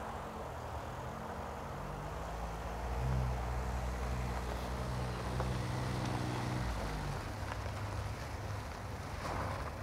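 1998 LDV Pilot van's engine running as the van drives up, a low engine note that gets louder about three seconds in and eases off about seven seconds in as it slows. It sounds rough.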